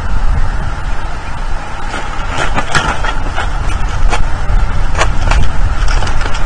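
Wind buffeting the nest-cam microphone, a steady low rumble. Over it, a run of sharp clicks and knocks about two to five and a half seconds in as a bald eaglet flaps and clambers up onto a pine branch beside the nest.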